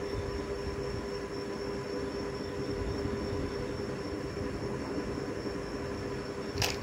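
Steady background hum with a low rumble and a constant faint tone, unchanging throughout.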